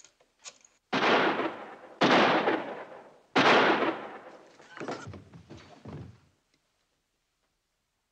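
Three gunshots about a second apart, each cracking out and dying away, followed by a couple of quieter knocks.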